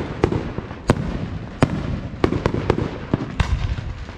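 Aerial firework shells bursting: a rapid, uneven series of sharp bangs over a steady low rumble.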